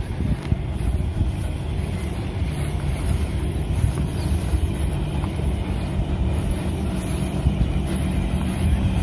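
A steady low engine drone from heavy machinery, with wind rumbling on the microphone.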